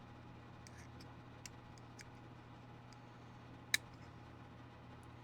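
Scattered faint clicks and taps of small tools and metal model parts being handled on a workbench, with one sharp, louder click about three-quarters of the way through.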